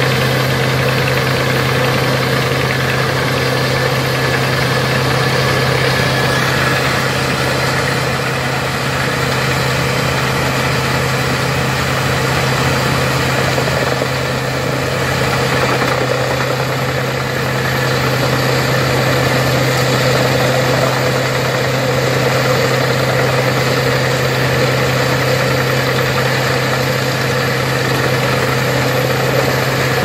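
Truck-mounted Pezzolato wood chipper running steadily under load as branches are fed in, making a continuous heavy machine drone with a deep steady hum and a rushing noise over it.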